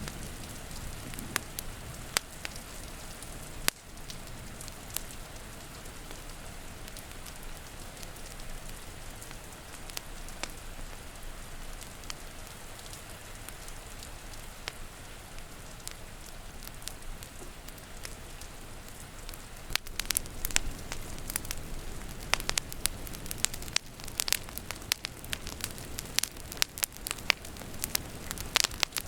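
Wood fire crackling and popping over a steady patter of rain. About two-thirds of the way through the crackles become thicker and louder.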